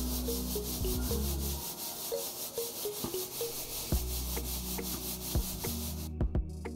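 Dry ground corn flour swishing and rasping against the inside of an aluminium basin as the basin is swirled, which gathers the coarse bran into the middle. It is a steady hiss that stops about six seconds in.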